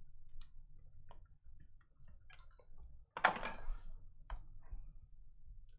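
Hands handling a trading card and its plastic holder, with light clicks and rustles. About three seconds in comes one louder scrape of about half a second, as the cardboard hobby box is moved on the table mat.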